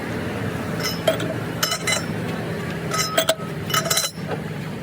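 Metal striking steel: a series of sharp ringing clinks, several in quick pairs, over a steady low hum. These are typical of hammer blows on truck axle or hub parts.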